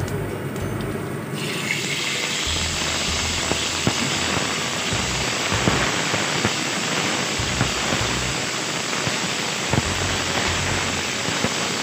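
Sliced raw meat sizzling in hot oil in a wok with fried ginger: the sizzle jumps up suddenly about a second and a half in as the meat goes in. The spatula scrapes and taps against the wok as the meat is stir-fried.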